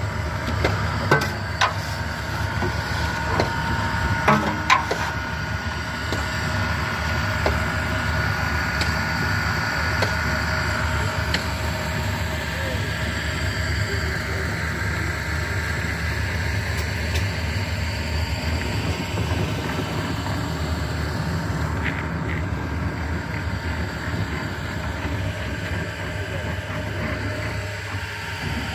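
Cement block-making machinery running steadily with a continuous low rumble, with a few sharp metal knocks in the first five seconds.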